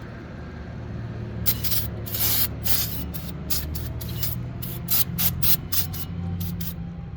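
Aerosol brake cleaner sprayed onto brake parts in a string of short hissing bursts, about a dozen of them, starting about a second and a half in.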